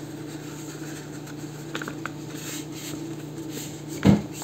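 Quiet rustling and handling of folded paper sheets over a steady low hum, with a single dull thump about four seconds in.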